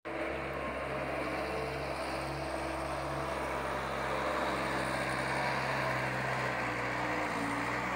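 Caterpillar 236 skid steer loader's diesel engine running steadily while it works a grapple on pine logs, its pitch dipping slightly about six and a half seconds in.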